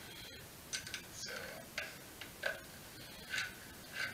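Light metal clicks of a hand tool working the handlebar stem bolts on an e-bike, about half a dozen irregularly spaced clicks.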